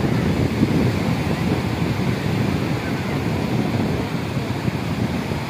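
Sea surf: small waves breaking and washing up the beach, with wind buffeting the microphone in a steady low rumble.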